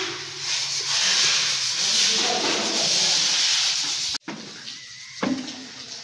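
A broom scratching steadily across a hard tiled floor. It cuts off abruptly about four seconds in, leaving quieter room noise with a single knock near the end.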